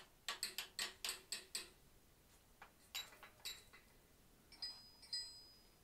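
Light hammer taps on a blacksmith's chisel set against the hot steel of a forged bear's nose, marking the split lip. A quick run of about seven taps comes in the first second and a half, then a few spaced taps, the last two with a short high metallic ring.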